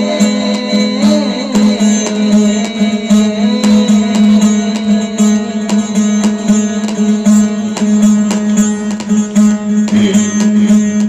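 Instrumental interlude of a devotional bhajan: a plucked string instrument playing quick, rhythmic notes over a steady low drone.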